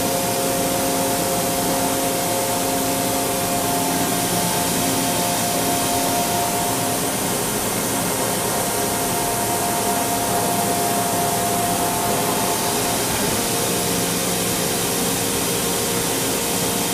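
HNK HB-130 CNC table-type boring mill running under power: a steady hiss with several whining tones that drop out or change pitch a few times.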